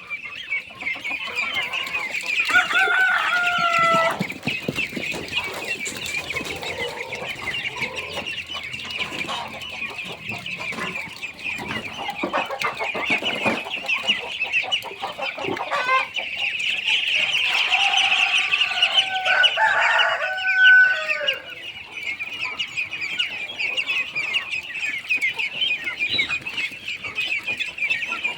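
A flock of chickens and ducks fighting over food, a dense continuous chatter of clucks and calls. Longer drawn-out calls stand out about three seconds in and again around twenty seconds in.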